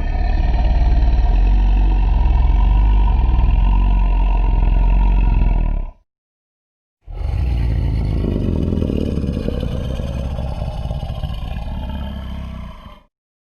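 Two long, low, rattling growls from a monster creature's sound effect, built from layered creature and animal sounds. Each lasts about six seconds, with a cut to silence of about a second between them.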